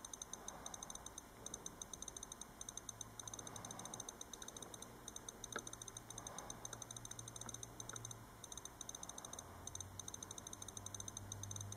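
Apple iPod Nano 4th generation's click wheel clicker ticking rapidly as the song list is scrolled, with brief pauses now and then.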